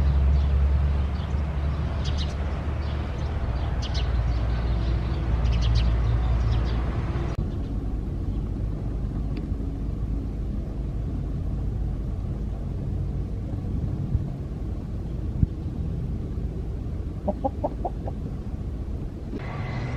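Chickens clucking over a steady low mechanical hum, with short high chirps in the first few seconds and a quick run of clucks near the end.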